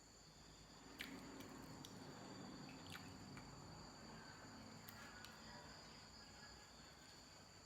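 Faint eating sounds, a few sharp mouth clicks and soft chewing, over a steady high-pitched drone of crickets.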